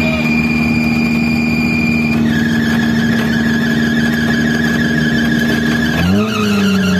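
Off-road racing buggy's engine held at high revs while the car sits in deep mud, with a brief dip and rise in revs about six seconds in.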